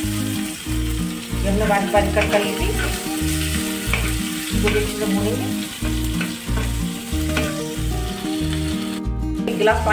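Chopped green chillies, cumin and mustard seeds sizzling in hot oil in a pan, stirred and scraped with a ladle. Background music with a steady beat plays under it.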